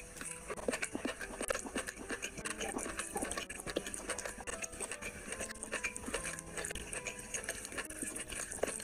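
Wet chewing and lip-smacking clicks, with fingers squelching and mixing curry-soaked rice on a plate.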